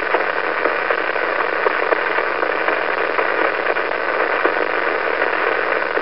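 Neutron star's radio emission played back as sound: a steady, even hiss like radio static, with a faint low hum under it.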